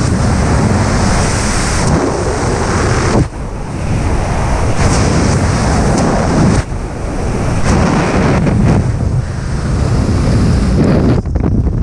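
Freefall wind rushing over a skydiver's helmet-camera microphone: a loud, steady rush that surges and dips, with a short drop a little over three seconds in, and the high hiss thinning near the end.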